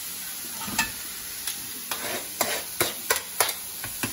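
Chopped chicken, peppers and onions sizzling in a hot skillet with a steady hiss, while a utensil stirs them in. From about a second in, a run of sharp clacks and scrapes against the pan.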